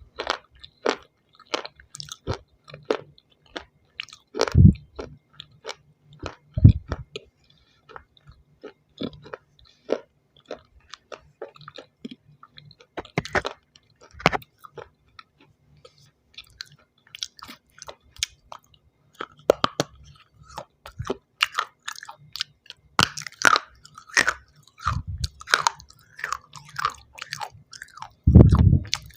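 Close-up biting and chewing of hard pieces of shell stone: a steady run of sharp crunches and crackles, with a few louder, deeper bites among them.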